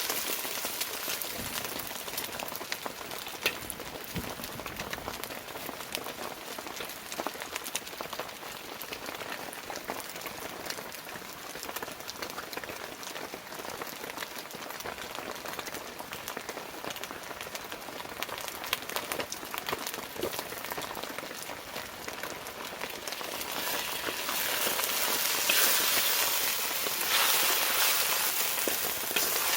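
Heavy rain falling, a steady hiss full of small drop ticks that grows louder about 24 seconds in.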